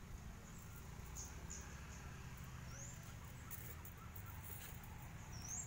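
Small birds chirping faintly, a few short high rising chirps spaced a second or more apart, over a low steady rumble.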